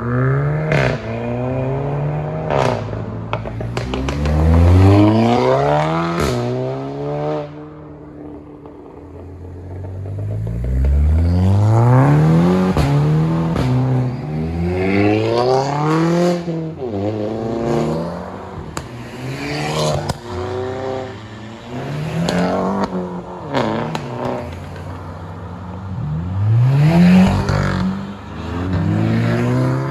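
Hot hatches accelerating hard away one after another, each engine revving up through the gears with its pitch rising, breaking at each shift and climbing again. Sharp exhaust cracks mark several of the shifts, with a short lull between cars about a third of the way in.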